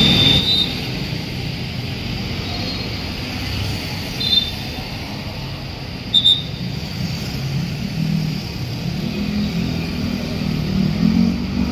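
Road traffic passing close by: motorcycle and car engines with tyre noise, the engine sound growing louder in the last few seconds as vehicles pass. A few brief high squeaks come through, the loudest about six seconds in.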